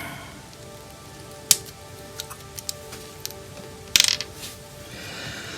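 Small plastic model-kit parts clicking and tapping as they are handled and fitted: one sharp click about a second and a half in and a quick cluster of clicks around four seconds, over quiet background music.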